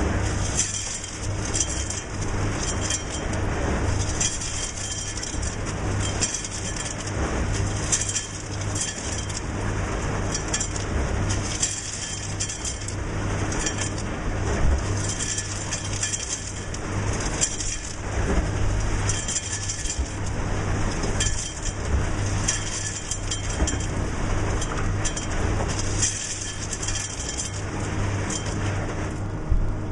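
Ice cubes pouring and clinking into a bag from the Cool-Serve CS 1300 ice-vending machine's dispenser, an irregular clatter over a steady low hum.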